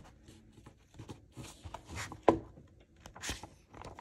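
Paper rustling and small clicks as a book's pages are handled, with one sharper click about two seconds in.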